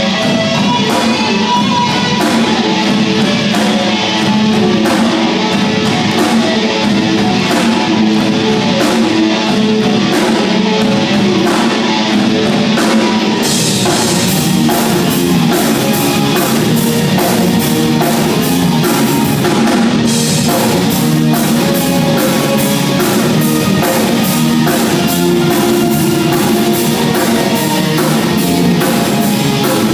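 Live rock band playing: electric guitars over a drum kit, with steady cymbal strokes getting brighter and more regular about halfway through.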